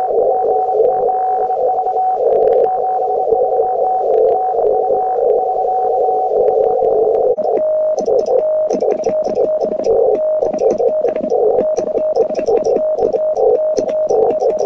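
Radio receiver audio: band noise through a narrow CW filter with a steady tone. About seven seconds in it gives way to Morse code sent on a Vibroplex Lightning Bug semi-automatic key, a keyed sidetone beeping in rapid dots and dashes with the key's contacts clicking under it.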